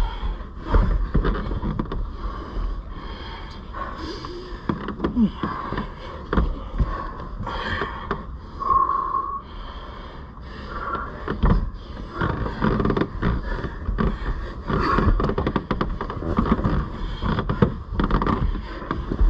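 Two grapplers scuffling in a car's back seat: irregular rubbing and shuffling of bodies against the seat upholstery, with frequent knocks and bumps against the car's interior.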